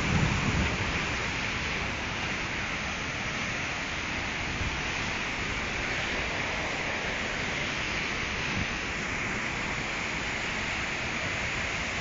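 Waterfall: a steady rush of falling water, with a brief low rumble in the first second.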